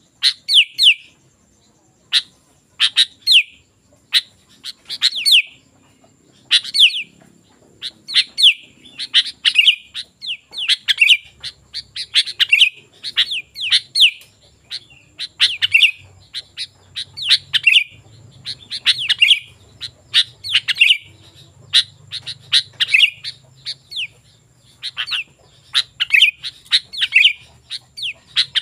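Sooty-headed bulbul (kutilang) singing: short, chattering phrases of quick falling notes, repeated about once a second.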